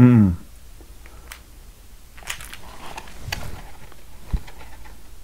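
A man's brief low grunt, falling in pitch, then faint scattered clicks and rustling of handling noise.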